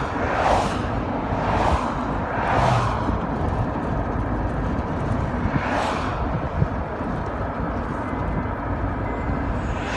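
Road and wind noise from a car driving along an open road: a steady low rumble and hiss, with a few swelling whooshes in the first three seconds and another about six seconds in.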